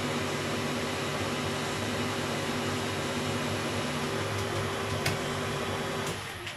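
Weiler Matador metal lathe running with a steady mechanical hum. There is one sharp click about five seconds in, and the machine's noise drops away about six seconds in as it is stopped.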